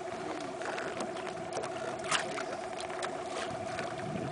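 Boat motor running with a steady droning hum, with water splashing at the hull and one sharp knock about halfway through.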